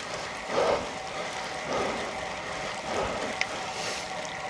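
Steady rush of heavy rain and wet bicycle tyres on loose gravel during a steep climb. A soft swell of noise comes through about once a second.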